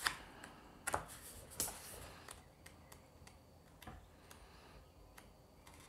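Pages of a cloth-bound hardcover book being flipped through under the thumb, giving faint, irregularly spaced ticks as pages slip free.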